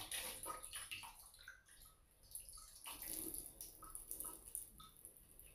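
Water pouring from a tilted glass vase into a glass bowl, a faint trickling splash with small drips, as the orchid roots' soaking water is drained off. It comes in two spells with a quieter gap between.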